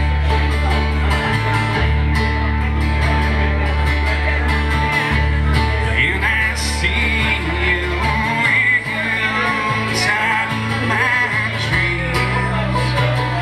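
Live acoustic band playing: strummed acoustic guitar, a picked five-string banjo and an acoustic bass guitar holding low notes, with a man singing from about six seconds in. The bass drops out a little after eight seconds and comes back near the end.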